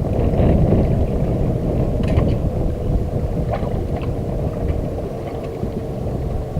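Wind rumbling on the microphone aboard a boat, with a few light knocks and clicks. A faint steady hum comes in about two and a half seconds in and stops near the end.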